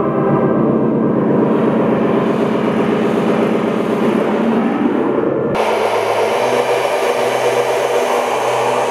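Experimental electronic soundtrack: a layered drone pulsing rapidly, its pitch rising near the middle, then switching abruptly about five and a half seconds in to a steady hiss over a low, throbbing hum.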